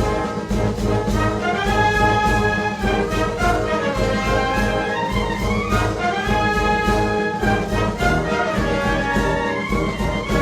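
Wind band playing Moros y Cristianos festival music: brass melody with trumpets and trombones over a steady drum beat.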